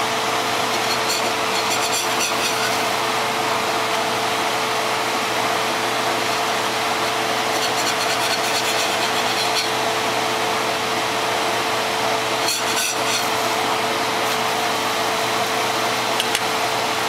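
Steady hiss of a stovetop griddle with a constant hum under it. There are three short stretches of light clicking and scraping: about a second in, around eight seconds and near thirteen seconds.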